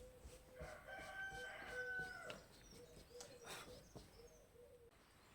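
A rooster crowing once, faint and distant, its call held steady for about a second before breaking off.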